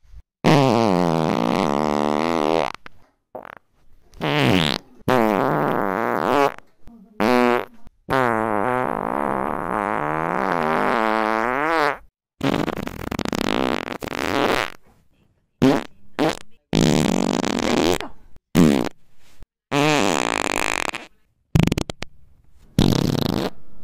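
A string of fart sounds: about a dozen buzzing blasts of varying length, some brief and some several seconds long, each with a pitch that wobbles and slides up and down, separated by sudden short silences.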